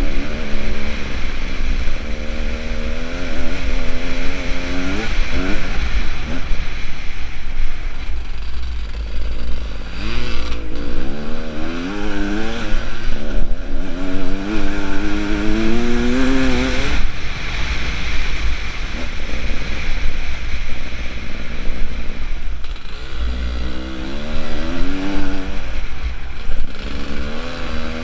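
Beta Xtrainer 300 two-stroke enduro motorcycle engine revving up and dropping back again and again as the rider accelerates and shifts along a gravel trail, with a steady low wind rumble on the helmet microphone.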